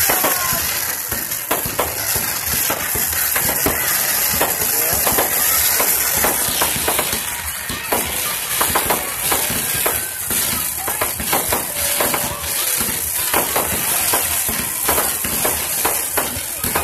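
Aerial fireworks going off in quick succession: many sharp bangs and crackles, one after another.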